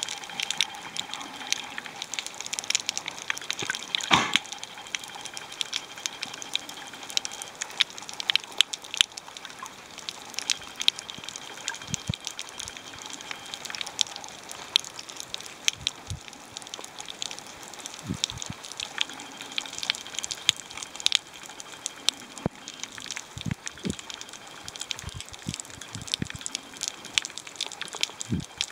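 Underwater coral-reef crackle: a dense, irregular patter of sharp clicks of the kind snapping shrimp make, with a louder crack about four seconds in and a few dull low knocks in the second half.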